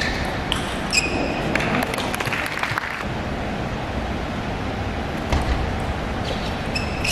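Celluloid-plastic table tennis ball clicking off rackets and bouncing on the table in rallies, a string of sharp clicks, over the steady hum of a large hall. Short high squeaks of players' shoes on the court floor come near the start and again near the end.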